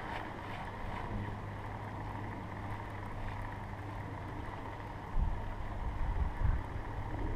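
Wind buffeting an action-camera microphone: a steady low rumble that turns louder and gustier about five seconds in.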